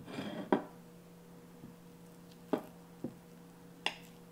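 Knife and fork cutting through a stack of pancakes on a plate: a brief scrape ending in a sharp click of metal on the plate, then three lighter clicks later on. A faint steady hum runs underneath.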